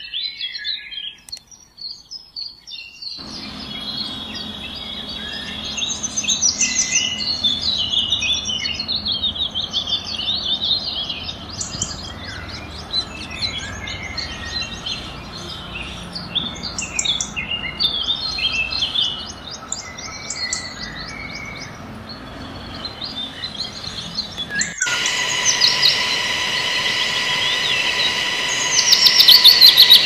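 Many small birds chirping and calling at once in a busy chorus, which changes abruptly twice where the audio is cut. In the last few seconds a steady high hum joins the chirping.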